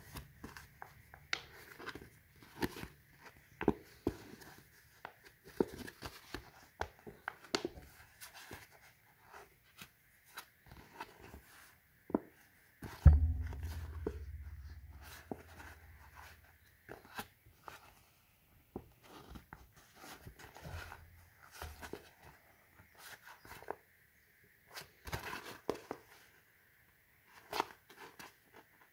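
Scored polypropylene sheet being bent and folded by hand along its creases: scattered soft clicks and crinkles. One low thump about halfway through.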